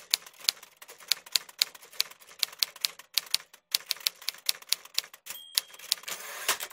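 Typewriter sound effect: irregular key strikes, about three or four a second, with a bell ding about five seconds in and a rasping slide near the end.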